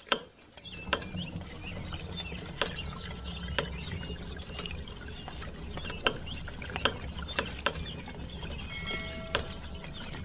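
Irregular plastic clicking and rattling, a few clicks a second, as the lever of a miniature homemade hand pump is worked by hand, over a steady low hum.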